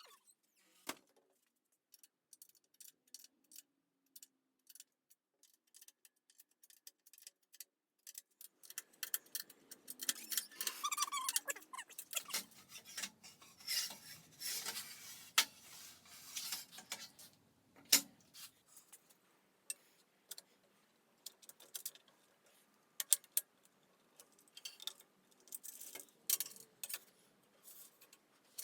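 Small metal parts and hand tools being handled: light clicks, clinks and knocks, with a busier stretch of rubbing and clatter in the middle.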